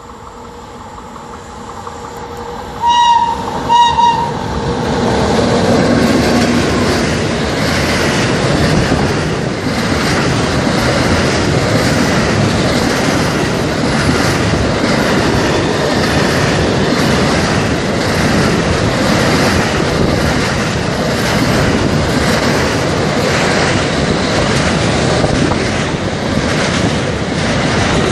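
A container freight train hauled by an FS E652 electric locomotive approaches, with two short horn blasts about three and four seconds in. Its container wagons then pass close by with a steady loud rumble and clatter of wheels on the rails.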